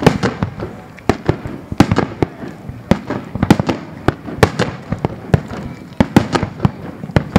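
Aerial fireworks shells bursting in a rapid volley: many sharp bangs a second, some louder than others, overlapping one another.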